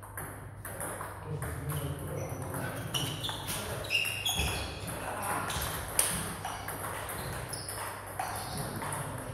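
Table tennis ball clicking back and forth off bats and table in rallies, a quick irregular run of sharp ticks, with more ball strikes from other tables around.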